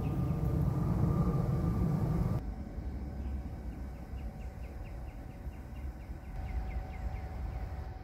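A low, steady motor-like hum that cuts off suddenly about two and a half seconds in, leaving quieter outdoor background with a faint high chirp repeating a couple of times a second.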